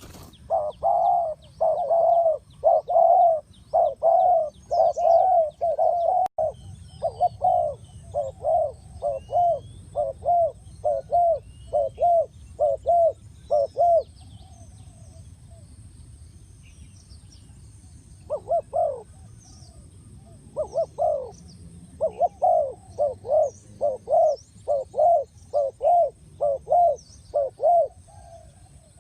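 Spotted dove cooing in a long run of short coos, about two a second. The coos break off for a few seconds midway, then start again. Faint high chirps and whistles of small birds sound behind them.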